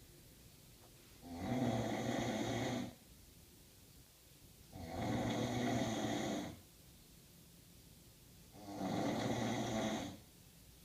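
A man snoring loudly: three long snores, each one and a half to two seconds, coming about every three and a half to four seconds, with quieter pauses between.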